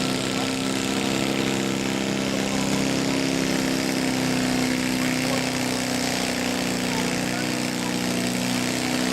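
Engine of a modified riding lawn mower running at a steady speed, holding one even pitch with no revving.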